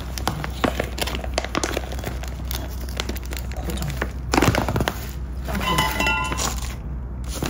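A string of light clicks and clinks of small hard objects being handled, with a brief ringing tone about six seconds in.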